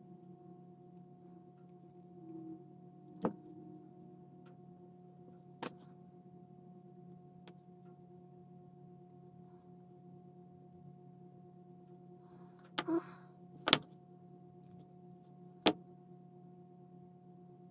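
A few sharp clicks and taps from small tools and parts being handled in fiddly hand work, with a brief rustle shortly before the two loudest clicks, over a steady low electrical hum.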